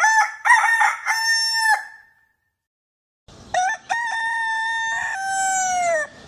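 Ayam kampung rooster crowing twice: a short crow right at the start, then after a pause a longer crow that ends in a drawn-out, falling note.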